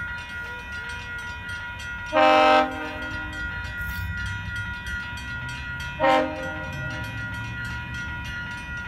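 GO Transit train's air horn sounding two short chord blasts about four seconds apart as the train approaches the level crossing. Under them the crossing's warning bell rings steadily with rapid strikes.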